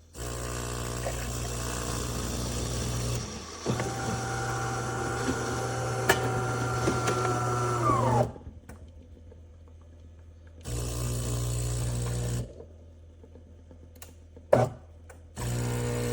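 Automatic espresso machine running in several bursts of steady motor and pump hum, with clicks between them. In one longer burst a higher whine slides down in pitch as it stops, about eight seconds in.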